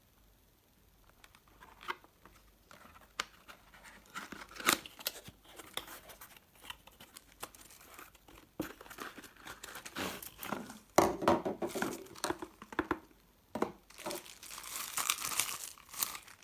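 Packaging being handled and torn open: irregular crinkling and tearing with scattered clicks and knocks, densest near the end.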